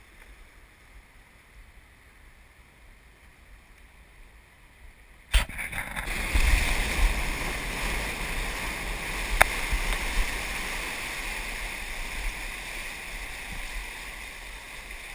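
Faint hiss of surf for about five seconds, then a sudden click and a loud, steady rush of water and spray, with low rumble, from a camera on the nose of a surfboard as it is paddled into a wave and ridden. A second sharp click about nine seconds in.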